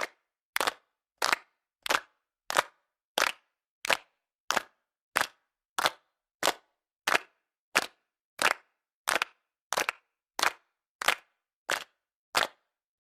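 A small group of people clapping in unison, one sharp clap together about every two-thirds of a second in a steady rhythm, with silence between claps.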